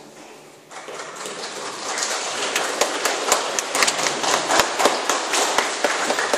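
Audience applauding, starting just under a second in and growing louder, after the last acoustic guitar chord has faded away.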